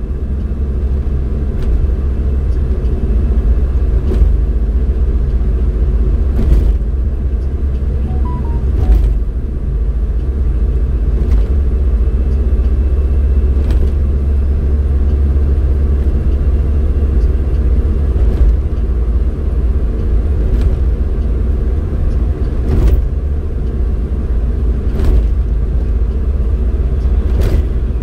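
Road vehicle driving at steady speed: a continuous low rumble of engine and road noise. A light thump comes about every two and a half seconds.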